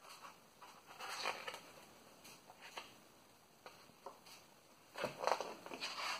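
Pages of a large hardcover photo book being turned by hand: heavy glossy paper rustling and flapping. There are two main flurries, about a second in and around five seconds in, with lighter rustles and small clicks between.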